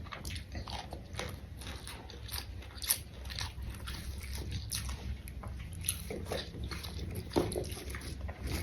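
Close-miked biting, crunching and chewing of raw vegetables, a run of irregular crisp crunches with wet mouth sounds.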